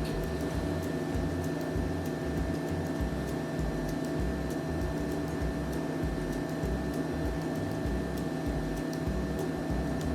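A steady mechanical hum with a few faint ticks.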